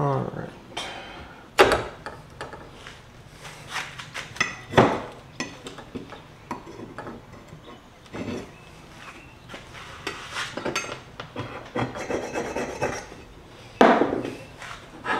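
Steel plates and a 3D-printed plastic jig being handled and fitted together on a wooden workbench: irregular knocks, clatter and scraping, with the sharpest knocks about a second and a half in, near five seconds and near the end.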